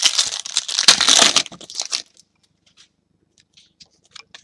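Trading-card pack wrapper being torn open and crinkled, loud for about two seconds. Then come a few faint light clicks and rustles of the cards being handled.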